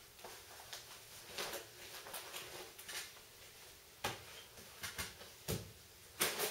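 Handling noise of camping gear being unpacked: rustles, light clicks and soft knocks as nylon pouches and packaged items are pulled from a backpack and set down on carpet, with a few louder knocks about four, five and a half and six seconds in.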